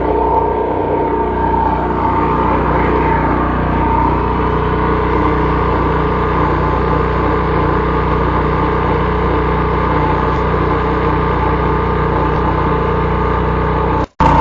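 Small portable generator engine running steadily under electrical load. The sound drops out completely for a moment near the end.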